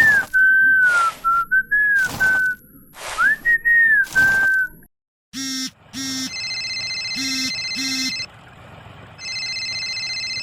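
A whistled tune, one clear gliding tone, cut by a few short bursts of noise. Then comes a telephone: a few short electronic beeps, then a steady multi-tone ring that stops and starts again.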